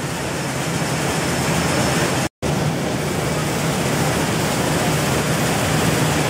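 Rice mill machinery running steadily, with a stream of rice grains pouring from a chute into a bin, heard as a constant rushing noise over a low hum. The sound cuts out for an instant a little over two seconds in.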